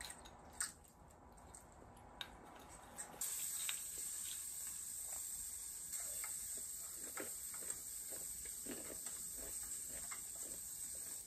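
Eating sounds: a wooden spoon tapping a small glass bowl and quiet chewing, heard as scattered soft clicks. A steady high hiss sets in about three seconds in.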